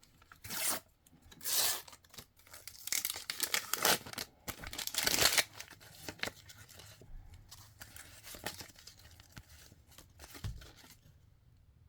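Small sticker packets being torn open by hand: several short ripping tears in the first five seconds, then softer crinkling and rustling as the stickers are handled, fading out near the end.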